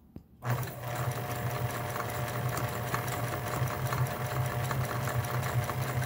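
Kenmore Sensor Sew 70 electronic sewing machine stitching a buttonhole: it starts about half a second in and then runs steadily, a motor hum with rapid, even needle ticking.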